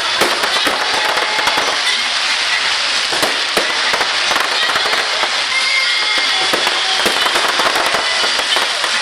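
Fireworks display: a dense, continuous crackling of many small pops, with a few sharper reports scattered through.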